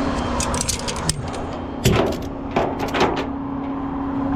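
A steady engine hum, with several sharp knocks and clacks over it, like a vehicle door being opened and shut.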